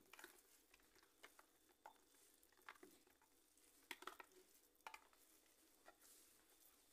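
Faint scraping and soft taps of a plastic spatula against a plastic food-processor bowl as a meat-and-bulgur mixture is scraped out, a light knock about once a second.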